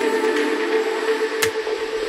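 Background music with a sustained held note, and a single sharp click about one and a half seconds in.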